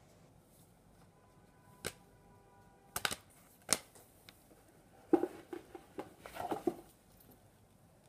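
Stiff trading cards and printed paper inserts handled and set down on a tabletop: a few separate sharp taps and clicks, then a busier stretch of card and paper handling about five seconds in.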